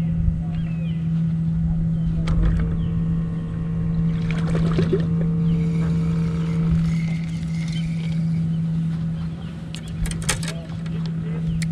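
Bow-mounted electric trolling motor running with a steady low hum, with a few sharp clicks and knocks about ten seconds in as tackle is handled on the boat's deck.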